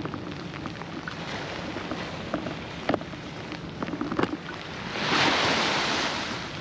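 Steady rain with scattered drop hits, and a loud rushing whoosh that swells about five seconds in and fades near the end.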